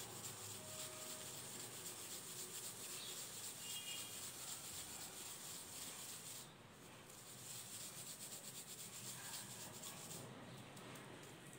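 Crushed mothball powder being rubbed and pressed: a fast, gritty crackling scrape that breaks off briefly just past halfway and again near the end.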